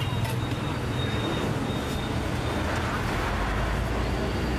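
Steady low rumble of road traffic, growing deeper near the end.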